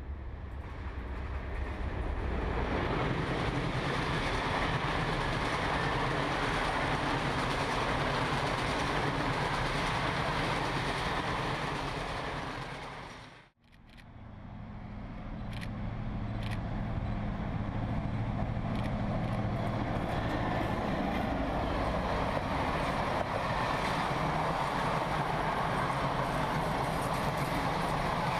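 NOHAB M61 diesel-electric locomotive, with its two-stroke EMD V16 engine, running past under power with a train of passenger coaches; the sound builds over the first few seconds, cuts out briefly about halfway, then the engine hum and the rolling noise of the coaches return loud.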